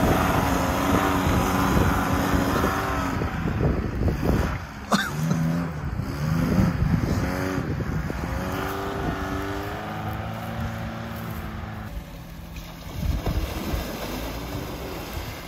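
Lada Niva engine revving under load as it climbs a muddy slope, its pitch rising and falling and its sound fading as it pulls away. Near the end another off-roader, a Suzuki Jimny, drives through a muddy puddle, with its engine surging and water splashing.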